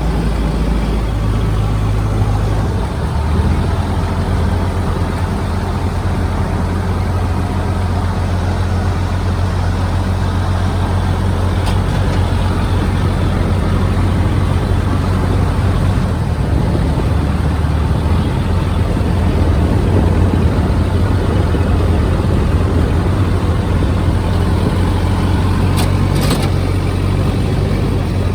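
Kubota DC-73 combine harvester's diesel engine running steadily under load, a loud continuous low drone that settles into a slightly different pitch in the first few seconds.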